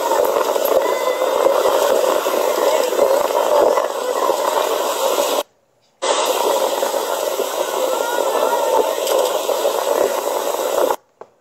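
Steady rush of wind and sea water along a sailing yacht under way, heard through a phone's microphone. It breaks off twice, briefly, at joins between clips: once about halfway through and once near the end.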